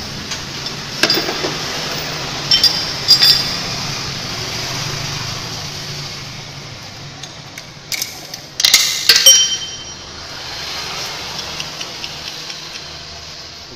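Sharp metallic clinks with a short ring: a few in the first three seconds and the loudest cluster about eight to nine seconds in, over a steady low hum.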